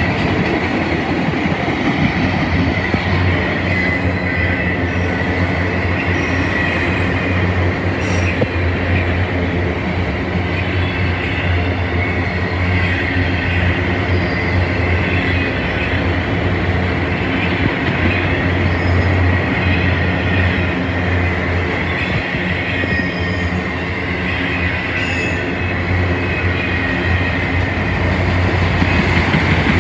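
Freight train of autorack cars rolling past at close range: a loud, steady rumble of wheels on rail with a thin, steady high whine over it and a few sharp clicks.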